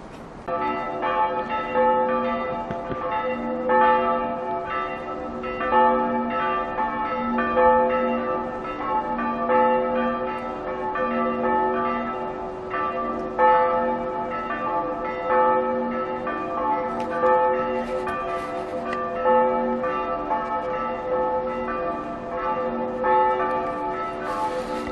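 Bells chiming, a new stroke about once a second over long, overlapping ringing notes, starting suddenly about half a second in.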